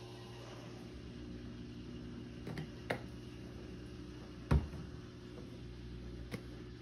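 A glass bottle of olive oil handled over a plate on a granite counter while oil is drizzled onto hummus: a few light clicks and knocks, and one louder low thump about four and a half seconds in. A steady low hum runs underneath.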